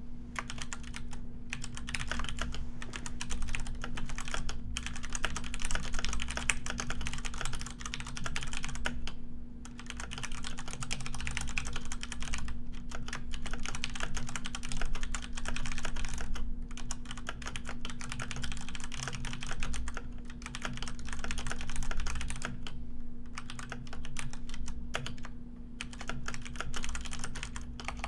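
Typing on a computer keyboard: fast, continuous key clicks in runs, with short pauses now and then, over a steady low hum.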